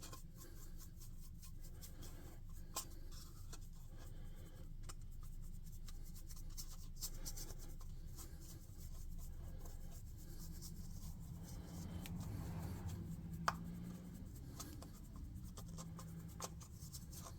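Paintbrush scratching and dabbing as paint is brushed onto a plastic figure, soft and steady, with a few small clicks, over a faint low room hum.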